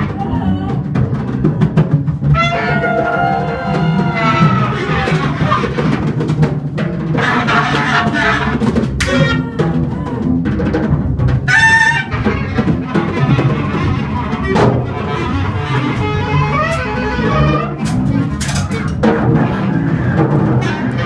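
A small jazz group playing live, with trumpet and clarinet lines over acoustic guitar and a drum kit. Several sharp cymbal or drum strikes cut through.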